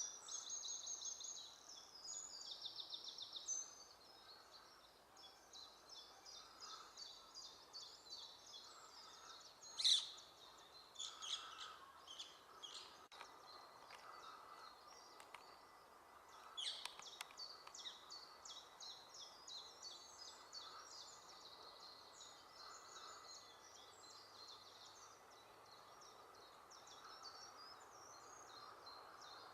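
Small songbirds twittering in a fast, high-pitched run of chirps that goes on without a break, with one sharp click about ten seconds in.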